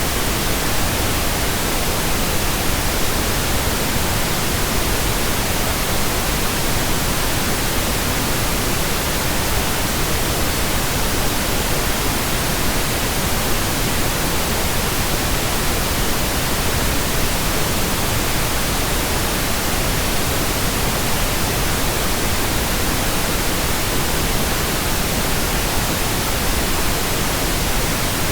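Steady, unchanging pink noise: an even hiss spread across all pitches.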